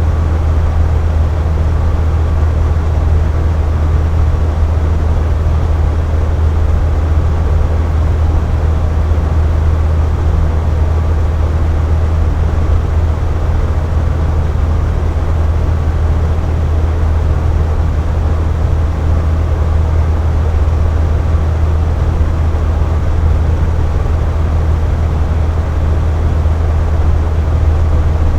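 Box fan running steadily: an even, unchanging noise over a strong low hum.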